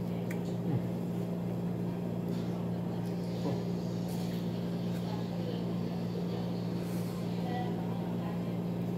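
A steady low machine hum runs throughout, with a few light clicks of chopsticks against a rice bowl.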